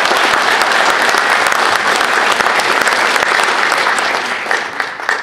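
Audience applauding, many hands clapping together; the clapping thins out and fades in the last second.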